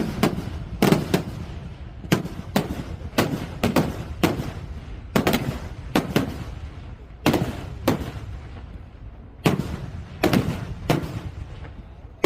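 Festival fireworks going off in a rapid, irregular series of loud bangs, roughly two a second. Each bang trails off in an echoing rumble.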